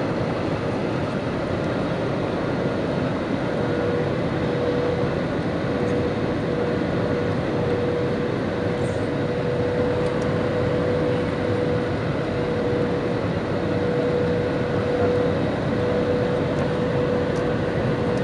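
Airliner cabin noise on final approach: the steady rush of the jet engines and airflow heard from a window seat, with a constant whine running through it.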